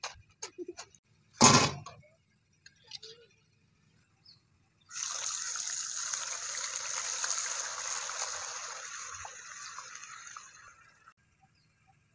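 A few light clicks and one sharp knock about a second and a half in, then hot oil in an iron kadai sizzling loudly as raw potato slices are dropped in, starting suddenly about five seconds in and dying down over the next six seconds.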